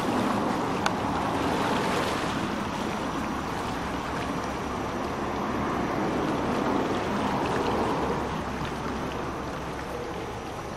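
Steady rushing of wind and small waves along a rocky river shore, swelling a little late on and easing near the end.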